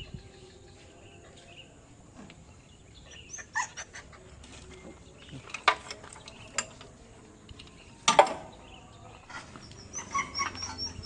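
Scattered sharp knocks and clinks, a few seconds apart, the loudest about two thirds of the way through, with birds chirping in quick short notes near the end.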